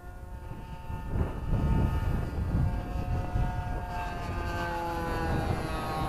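Nitro RC plane's Thunder Tiger 61 glow engine running at flying speed, a steady pitched buzz that falls in pitch from about two-thirds of the way in as the plane passes, with gusts of wind rumbling on the microphone.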